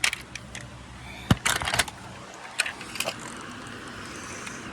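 Inside a car: a steady low engine and road hum, with several sharp clicks and knocks, the loudest a thump about a second and a half in followed by a quick cluster of clicks.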